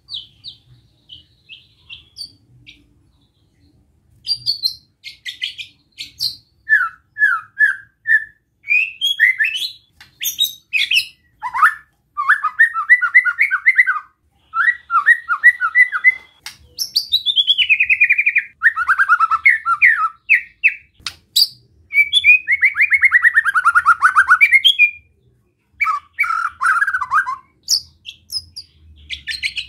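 White-rumped shama (murai batu) giving its besetan: strings of short chirps and fast rattling trills, several sweeping downward in pitch, in bursts with short pauses. The longest rattle, about three seconds, comes past the middle.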